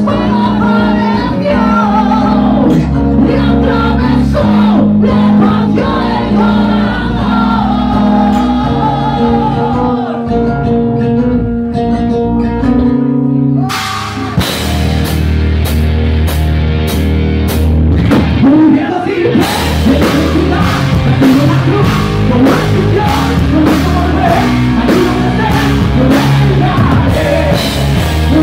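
Heavy metal band playing live with a male lead singer. The first half is a sung passage over held chords; about halfway through the full band comes in with drums and guitars, and the drumming grows busier a few seconds later.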